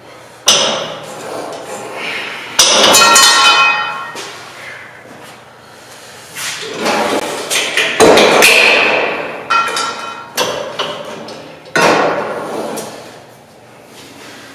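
Cable machine weight-stack plates clanking, metal striking metal several times, some clanks ringing on for a second or so.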